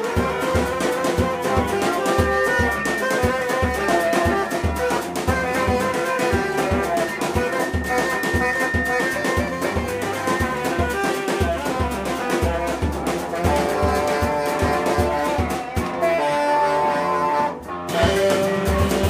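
Live instrumental quartet playing: saxophone leading over drums, guitar and viola. The band thins out briefly near the end, then comes back in.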